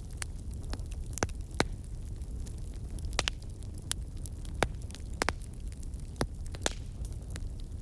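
Campfire burning: a steady low rumble of flames under irregular sharp crackles and pops from the burning wood, a few of them louder.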